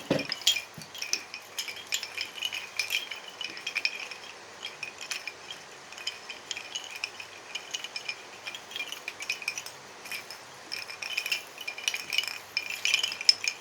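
A tangled wind chime being handled and worked loose: its chimes knock together in many small, irregular clinks and rattles, each ringing briefly.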